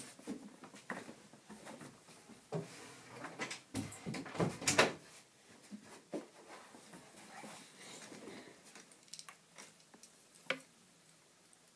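Scattered knocks, clicks and rustling from someone moving about and handling things close to the microphone, the loudest knock about five seconds in and a sharp click near the end.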